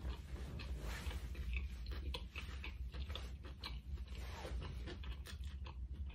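A person chewing food close to the microphone, with many short, irregular mouth clicks, over a steady low hum.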